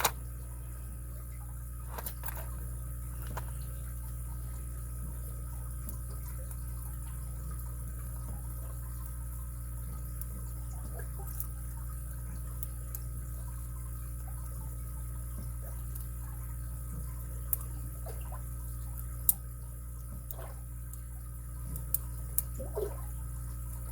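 Lock picks working the pins of a padlock: sparse faint clicks and scrapes, with a few sharper clicks near the end, over a steady low hum.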